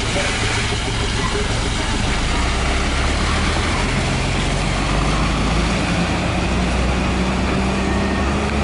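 Diesel engine of an Isuzu Erga city bus pulling away from the stop, running steadily at first, then its low engine note rising slowly from about four seconds in as the bus accelerates.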